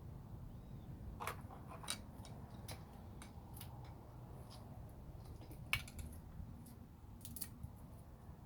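Scattered sharp clicks and snips of hand work on an ignition coil wiring harness, with tools and plastic connector parts being handled. The loudest click comes a little before the six-second mark.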